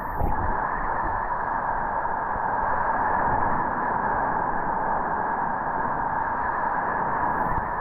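Rushing whitewater of rapids on the Merced River, a steady rush with a few short knocks just after the start and again near the end.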